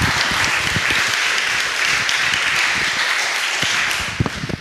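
Audience applauding steadily, dying away near the end with a few separate knocks as it fades.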